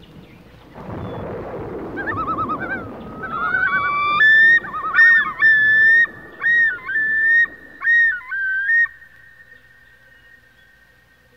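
A low rumbling noise in the first few seconds, then a run of clear, bird-like whistled notes: some quick trills, others held or stepping up and down in pitch. The last note lingers and fades.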